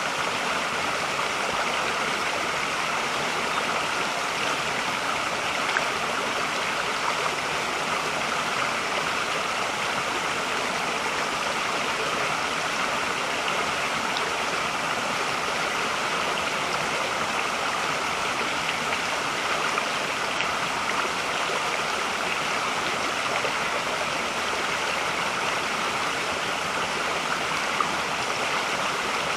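Mountain stream running steadily, a constant even rush of flowing water.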